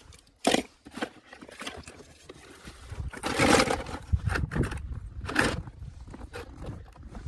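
Boots crunching through snow in uneven steps, with the rustle of gloved hands and a plastic tub of die-cast toy cars being handled; the loudest crunch comes about three and a half seconds in.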